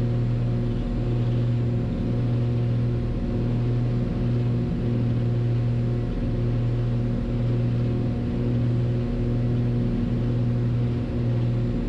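The Cessna 340A's two Continental TSIO-520 piston engines and propellers running steadily, a low drone with a slow regular throb about once a second.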